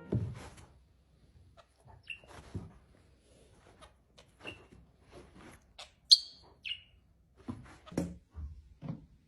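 A few short, high chirps spaced a second or two apart, among soft taps and knocks.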